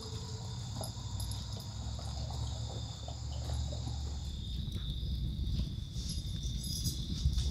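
Insects chirring in the woods: several high, steady trills, the highest one dropping out about halfway, over a low rumble.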